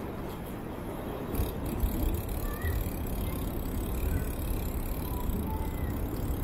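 Rumbling wind on the microphone and rolling road noise while riding a bicycle, growing louder about a second in, with a few faint short high chirps.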